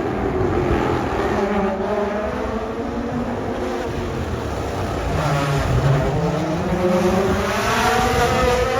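Rally car engine revving hard, pitch climbing and dropping through gear changes, getting louder in the second half.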